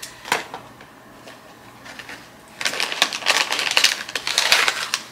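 Crinkling of plastic packaging being handled: a single click near the start, then a dense run of crackles from about halfway through.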